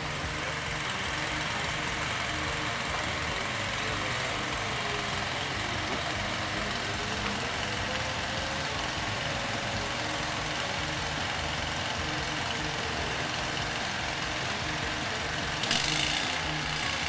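An engine runs steadily throughout. Near the end a stick-welding arc crackles and hisses for about a second as a tack weld is struck on the steel tube frame.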